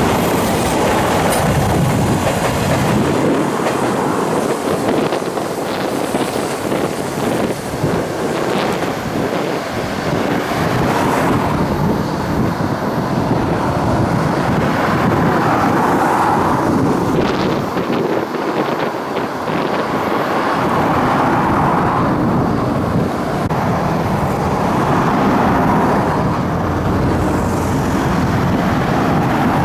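Fujikyuko Line electric train running along the track: a steady, loud rumble of wheels on rail that swells and eases every few seconds.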